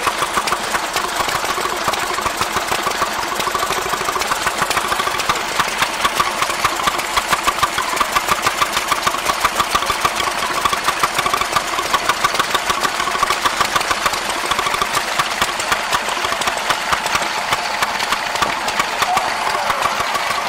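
Vintage single-cylinder stationary engines running steadily, with regular exhaust beats about five a second.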